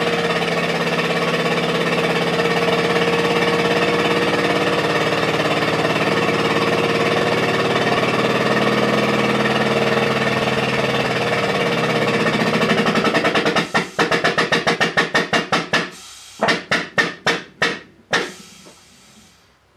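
Hydraulic pump of a small shop press running steadily while the press squeezes foam earplugs. About two-thirds through it breaks into rapid strokes, then after a short pause into slower strokes as the load builds.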